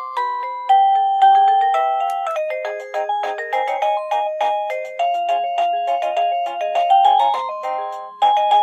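TeckNet WA888 wireless doorbell chime playing one of its built-in electronic ringtone tunes: a quick melody of chiming notes stepping up and down, several notes sounding at once.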